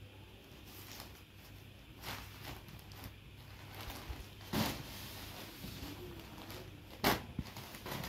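Folded cotton sarees being handled on a cloth-covered surface: fabric and packaging rustling, with a few sharper handling knocks about two, four and a half, and seven seconds in, as one saree is lifted away and another set down.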